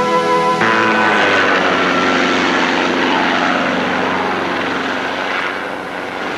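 A held musical note cuts off about half a second in, giving way to a steady engine drone of a propeller aircraft whose pitch slides slowly downward.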